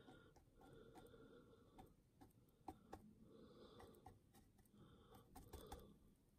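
Near silence: faint scattered ticks and soft dabbing as a brush works thick mud texture paste onto a model base.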